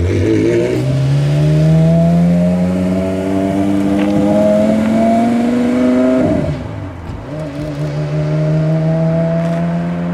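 Porsche Carrera GT's V10 through a straight-pipe exhaust, revving up steadily as the car accelerates away for about five seconds. Around six seconds in the pitch falls sharply, then it climbs again more quietly as the car draws away.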